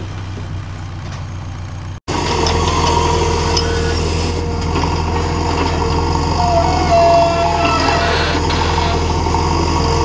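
JCB 3DX backhoe loader's diesel engine running steadily as the backhoe digs, with a steady whine over the engine. About two seconds in the sound drops out for an instant and comes back louder, as heard from inside the cab.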